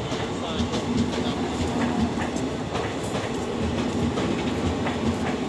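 Indian Railways ICF passenger coaches rolling past as the train pulls into the platform: a steady rumble of wheels on rail with irregular clicks and clacks over the rail joints.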